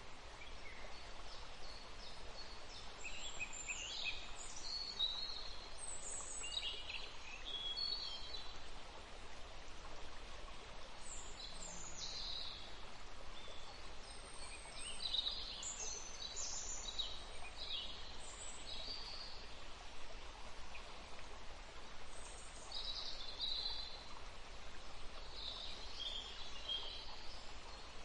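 Forest ambience: birds chirping and trilling on and off over a steady faint background hiss.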